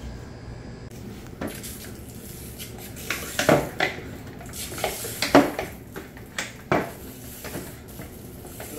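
A few sharp clinks and knocks of hard objects, like metal or dishware being handled, scattered between about three and seven seconds in over a steady low background.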